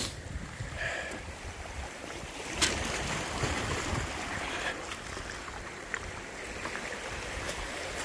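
Small sea waves washing over the rocks and pebbles of the shore, one surge swelling louder a few seconds in, with wind buffeting the phone's microphone and a few sharp clicks.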